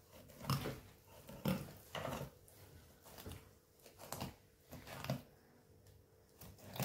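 Kitchen scissors snipping the fins and spines off small sea bream, with the fish and hands knocking on a wooden cutting board: a string of soft clicks and taps at irregular spacing, one or two a second.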